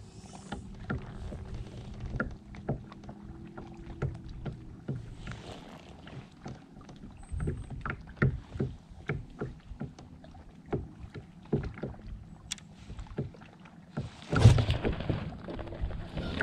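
Irregular light clicks and knocks of fishing tackle being handled in a plastic kayak, with a louder rustling burst about fourteen and a half seconds in.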